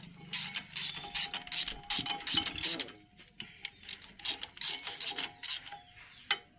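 Socket ratchet wrench clicking in quick runs, with a short pause about halfway, as bolts on a tractor's rear PTO housing are backed out to remove the PTO shaft.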